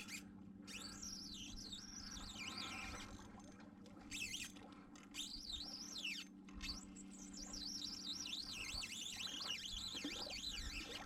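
A small songbird singing faintly: a fast, high, warbling twitter with short pauses, over a low steady hum.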